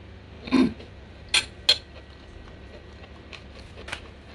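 A brief smack about half a second in, then a metal fork and spoon clinking sharply twice against a ceramic plate as they are set down, followed by a few fainter light clicks.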